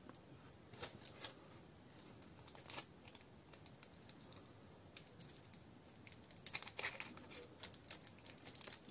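Faint, scattered clicks and light taps of 18650 lithium-ion cells and their metal tabs being handled and pressed together by hand, busiest about six to seven seconds in.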